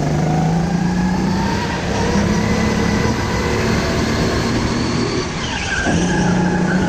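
Rental go-kart engine running at racing speed, heard onboard over tyre and wind noise. Its pitch climbs at first, eases off about five seconds in, then picks up again about a second later.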